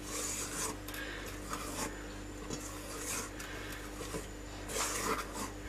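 Spatula folding meringue in a stainless steel bowl: soft, irregular scraping and swishing strokes against the bowl, over a faint steady hum.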